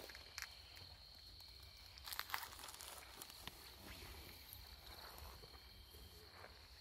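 Faint night ambience of crickets: a steady high-pitched trill, with a few faint scuffs and crunches about two seconds in.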